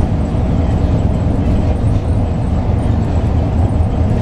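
Steady cabin noise aboard a moving 2004 Eldorado EZ-Rider II transit bus: the Cummins ISB diesel's low drone mixed with road and tyre noise, even throughout.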